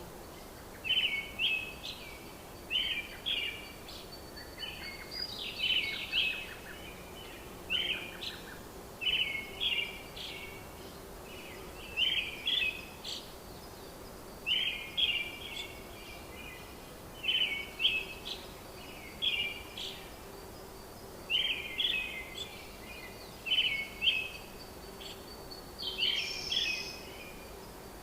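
A bird repeating short chirping calls every second or two, over a steady background hiss.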